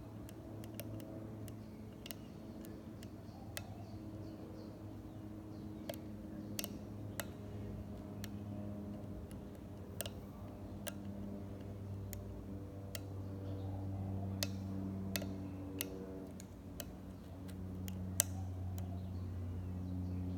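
Lock pick and tension wrench working inside a padlock: small irregular clicks and ticks as the pins are set, over a low steady hum.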